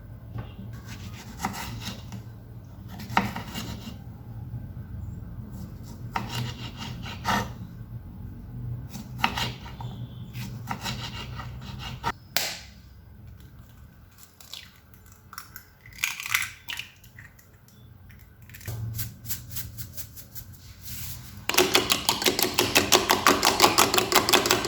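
Kitchen food-prep sounds: scattered scrapes, rubs and knocks of utensils. Near the end comes a louder, fast, even run of taps.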